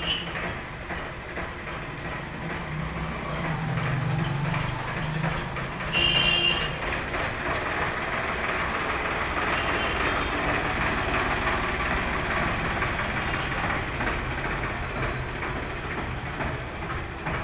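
Tractor diesel engine running as it pulls a drinking-water tank trailer up close, with a brief high-pitched beep about six seconds in.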